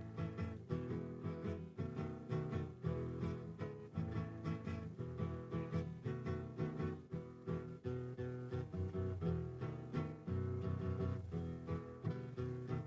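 Instrumental Mexican folk music from Michoacán: acoustic guitars strumming a steady, quick rhythm with plucked notes and a low bass line.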